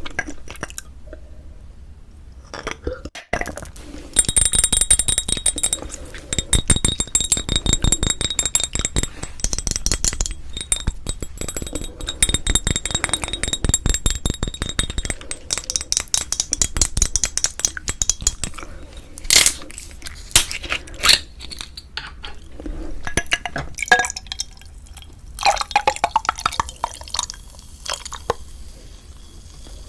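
Close-miked eating sounds from a meal of spicy cold noodles and beef rib meat: a long stretch of rapid, crackly chewing, then scattered sharp clicks of utensils against dishes.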